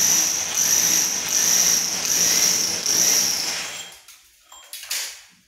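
Ryu RRH 26 rotary hammer boring into a plastered masonry wall with a large core bit: a loud, harsh grinding with a high whine, its level rising and falling as it cuts. It stops about four seconds in, followed by a few brief scrapes and knocks.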